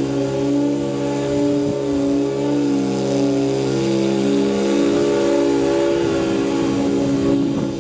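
Stand-on zero-turn mower's engine running steadily under load while mowing, a constant hum with slight shifts in pitch.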